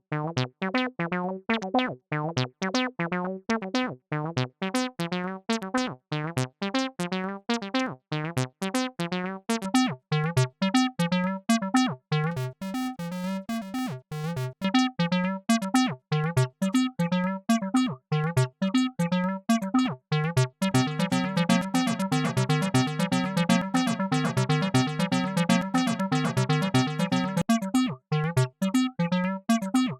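Browser-based emulation of a Roland TB-303 bass synthesizer playing a repeating sequence of rapid, short notes; in the later part the notes run together into a continuous line without gaps.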